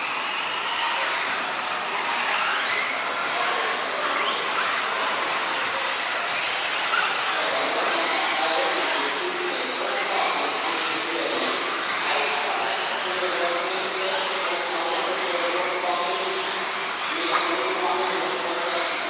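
Several 4WD off-road RC buggies racing on an indoor track, their electric motors whining up and down in short rising and falling sweeps as they accelerate and brake. The whines sound over a steady hall-wide din.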